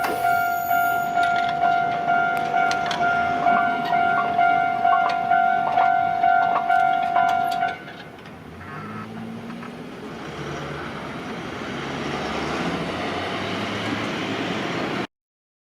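Level-crossing electric bell ringing steadily, pulsing about twice a second, then stopping abruptly about eight seconds in. A train's rumble then builds and grows louder as it approaches, and cuts off sharply near the end.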